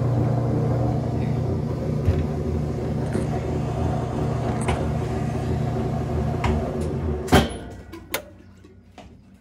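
Whirlpool direct-drive top-loading washer running with a steady motor hum. About seven seconds in there is a sharp click and the motor cuts off, and the sound dies away.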